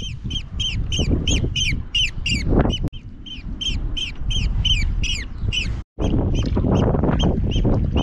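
A bird calling over and over in a fast run of short, high, falling notes, about four a second, with wind buffeting the microphone.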